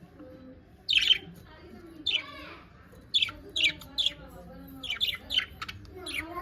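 Pet parakeets chirping: a scattered series of short, sharp, high-pitched chirps, some coming in quick pairs.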